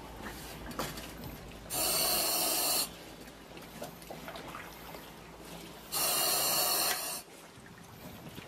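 Breathing through a respirator in a hooded rubber suit: two loud hissing breaths, each about a second long and about four seconds apart, with faint water sloshing and small clicks between them.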